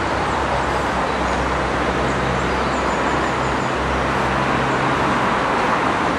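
A steam-hauled train approaching from a distance, its low rumble rising slightly near the end over a steady rushing background noise.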